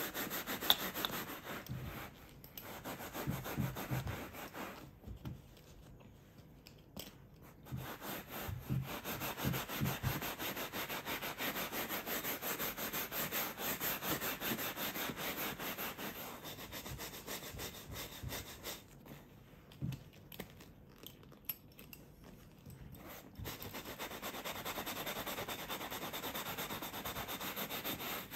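Bristle brush scrubbed back and forth over the sheepskin leather of a Schott Type B3 flight jacket: a fast run of rubbing, scratchy strokes that stops briefly twice.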